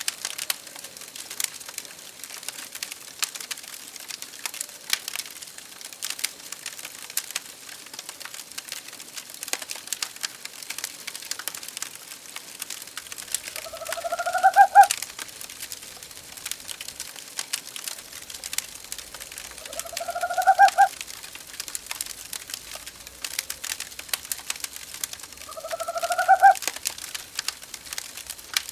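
Fireplace crackling and popping steadily while an owl hoots three times, about six seconds apart, each call about a second long and rising in pitch.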